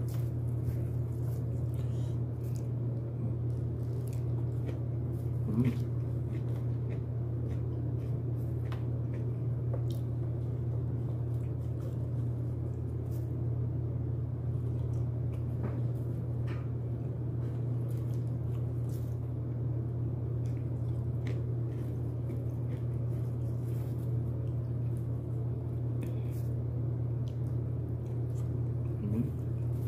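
Close-up eating sounds: chewing and biting into broasted chicken with rice, with scattered small clicks and smacks of the mouth. A steady low hum runs underneath.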